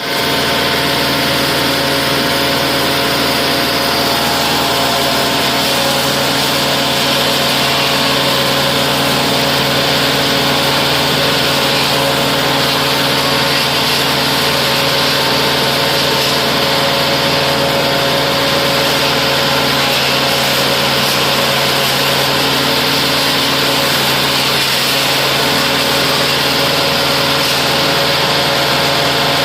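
Diesel engine of a mobile wood chipper shredder running at a steady speed, loud and unchanging throughout.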